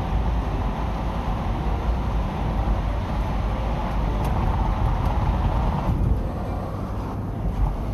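Steady road and tyre noise inside a car's cabin while driving through a road tunnel. About six seconds in the sound thins out as the car leaves the tunnel.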